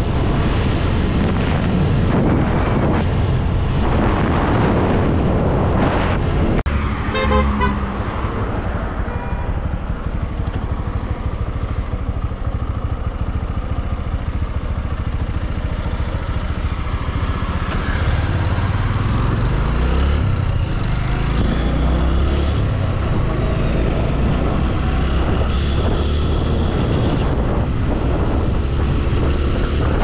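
A motorcycle being ridden, with heavy wind rush on the microphone. A short horn toot comes about seven seconds in. Later the engine note rises as the bike accelerates.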